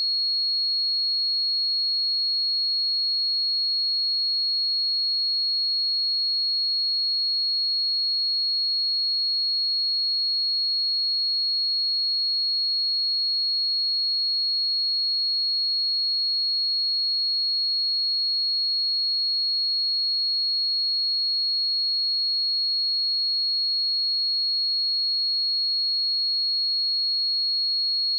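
Pure 4313 Hz sine-wave test tone, a single steady high-pitched tone held at constant level, used for testing speakers and headphones.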